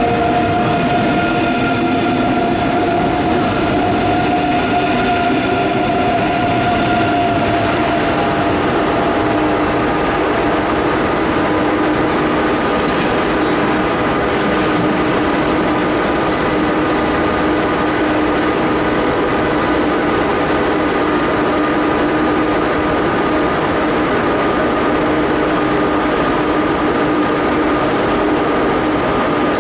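ICE 3 (class 406) high-speed electric train pulling away from the platform: a steady rail rumble with the whine of its traction electrics. The whine is made of several steady tones that shift to new pitches about seven or eight seconds in.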